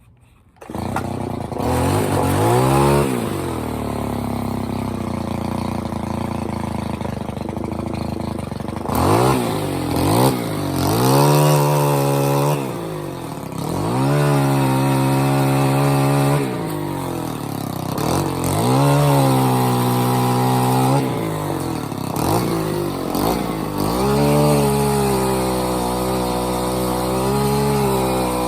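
Small petrol engine of a power tool starting up and then being revved up and down over and over, falling back to a lower running speed between revs.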